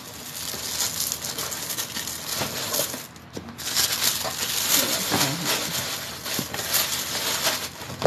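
Tissue paper crinkling and rustling as a pair of heels is wrapped and packed back into a shoebox, with a few light knocks along the way.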